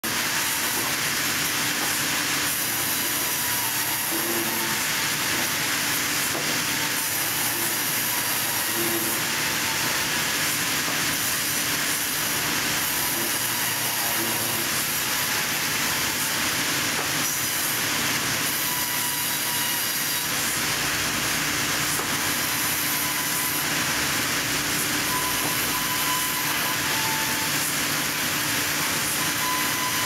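Sawmill saw machinery running steadily while logs are fed through it: a loud, unbroken mechanical noise with a strong high-pitched hiss.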